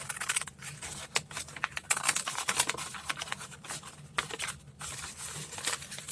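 Scissors cutting through a paper envelope: a run of short, irregular snips and paper rustles.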